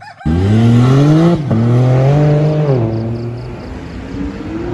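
Lamborghini sports car engine revving and accelerating loudly. The pitch climbs, drops sharply about a second and a half in, holds, eases off, then slowly builds again near the end.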